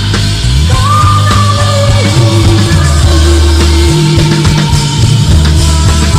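Loud rock music from a band recording: low held bass notes that change pitch every second or two, regular drum hits, and a sustained, slightly wavering higher melody line over them.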